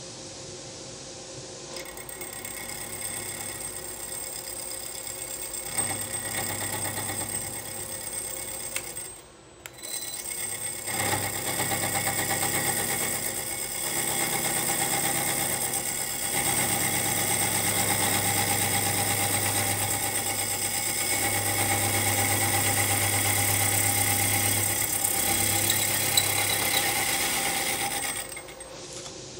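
Vertical milling machine running a 1.25-inch annular cutter into a clamped part, with a steady motor and spindle hum and cutting noise. It dips briefly about nine seconds in, runs louder again, then stops near the end.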